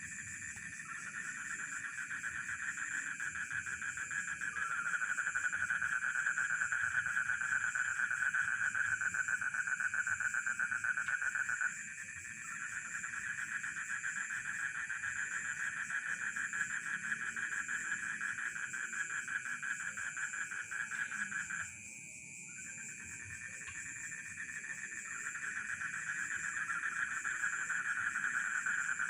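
Frogs and crickets calling together in a rice field: a dense, rapidly pulsing chorus that stops suddenly in unison twice, about twelve and twenty-two seconds in, then builds back up, over a steady high insect trill.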